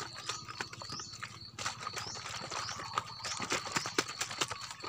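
Rice-wash water sloshing and knocking inside a 1.5-litre plastic bottle shaken hard by hand, an irregular rapid clatter. The shaking dissolves brown sugar settled at the bottom of the fertilizer mixture.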